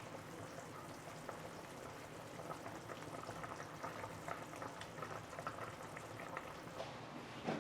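Pot of soy-braised pork belly simmering on low heat: a faint, steady bubbling of many small pops.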